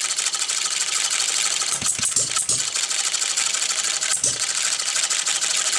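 Farm Boy model engine, machined from bar stock, running under its own power: a fast, steady mechanical clatter with a heavier beat about two seconds in and again a little past four seconds.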